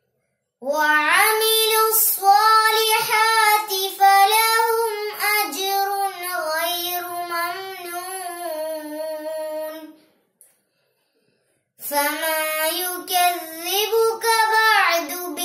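A young girl's solo Quran recitation, chanted in a melodic tajweed style with long held notes. One long phrase is followed by a pause of about two seconds, then another phrase begins.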